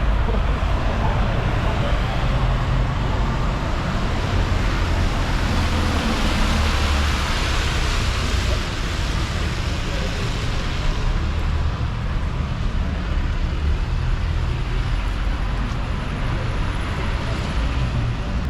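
Busy city street traffic, a steady wash of passing cars and buses, with a vehicle swelling past about six seconds in. Heavy wind rumble buffets the microphone throughout.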